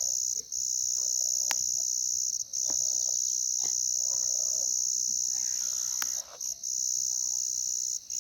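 Crickets chirring in a steady high-pitched chorus, broken by short gaps a few times, with two sharp clicks and faint rustling underneath.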